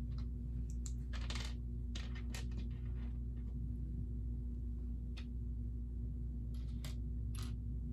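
Plastic Lego pieces clicking and rattling as they are picked out and fitted together, in scattered separate clicks with a longer rattle about a second in, over a steady low hum.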